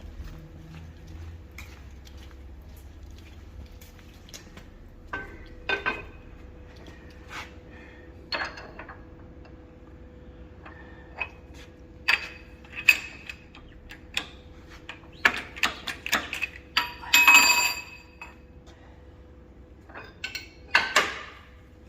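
Irregular metallic clinks and knocks with a bright ringing tone as the steel diff axle and press tooling are handled while it is nudged straight; the loudest cluster comes about two-thirds through, over a faint steady hum.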